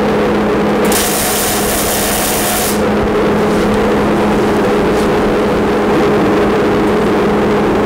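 Dust collector rigged as a fume extractor running with a steady hum. A Millermatic 211 MIG welder's arc, gas-shielded on steel, sizzles in one short weld from about one second in to nearly three seconds.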